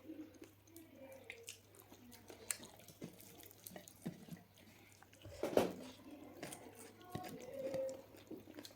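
Close, wet chewing and mouth sounds of someone eating chicken, with many small clicks and smacks and one louder sound a little past halfway.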